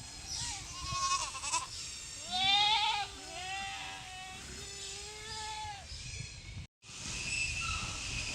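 Animals bleating: several wavering, pitched calls one after another, the loudest about two and a half seconds in. After a short dropout near the end there is only a steady hiss.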